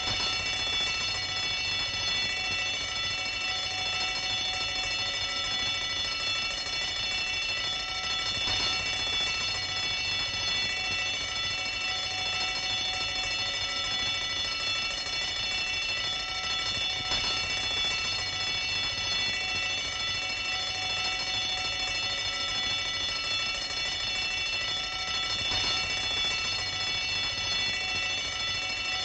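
Bell ringing continuously, a steady ringing with many overtones over a low hum, with a faint pulse about every eight and a half seconds.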